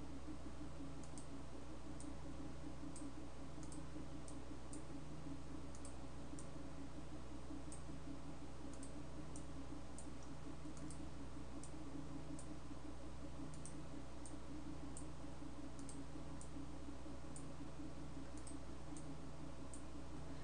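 Faint, irregular clicks of a computer mouse, about one or two a second, over a steady low electrical hum.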